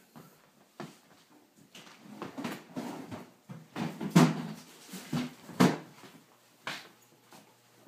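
Refrigerator door being opened and things inside it handled: a run of knocks and clatters, the loudest about four and five and a half seconds in.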